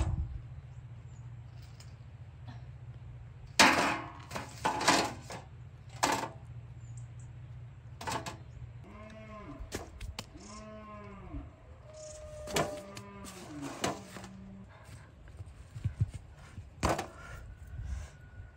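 A farm animal calling four times in a row, each call a drawn-out cry that rises and falls in pitch. Sharp knocks and clatters come before the calls and again near the end.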